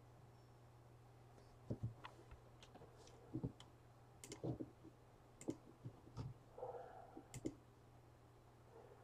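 Faint, irregular clicks and light taps, about a dozen scattered over several seconds, over a low steady hum.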